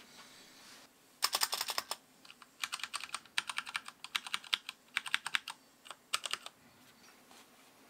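Typing on a Vortex Pok3r mechanical keyboard whose stabilizers are not yet lubed, described as extremely noisy. The keys clack in about five quick runs, starting about a second in, with short pauses between them.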